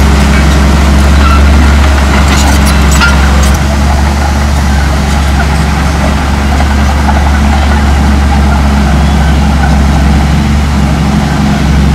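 Komatsu D58E crawler dozer's diesel engine running steadily, with a few sharp metallic clanks about two to three seconds in. The engine eases off slightly a little after three seconds.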